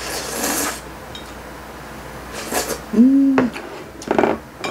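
Slurping noodles off a plate held up to the mouth, then a short hummed "mm" that rises and falls in pitch about three seconds in, with light clinks of chopsticks on the plate.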